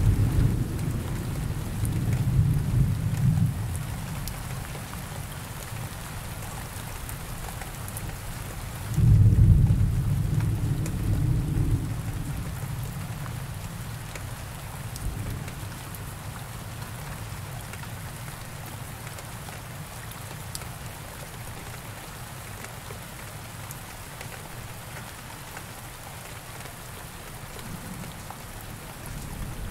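Steady rain with two deep rumbles of thunder: one dying away over the first few seconds, and another that rolls in about nine seconds in and fades over some three seconds.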